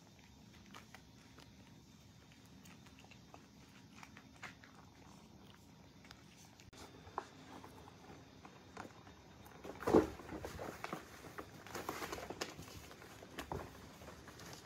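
Faint clicks of a cat eating from a bowl. After about seven seconds, kittens tussle on a cardboard cat scratcher: paws scuffling and scratching on the cardboard, with a sharp thump about ten seconds in.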